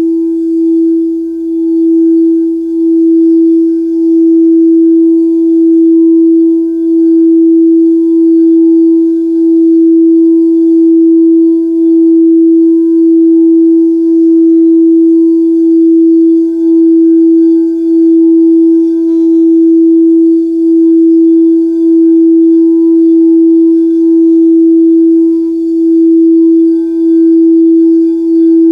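A solar plexus chakra singing bowl sounding one sustained, steady ringing tone with fainter overtones above it. The tone dips and swells slightly about once every second and a bit.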